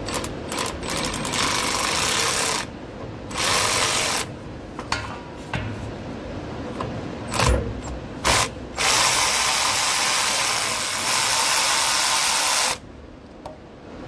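Cordless powered ratchet running in a series of bursts, some short and some a second or more, on the bolts and pipe fittings of a train's pneumatic brake dump valve. The longest run, about four seconds, comes near the end before it stops.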